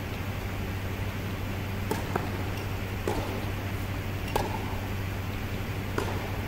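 Tennis ball struck by rackets and bouncing on an indoor hard court during a rally: about five sharp pops a second or so apart. Under them runs a steady low hum.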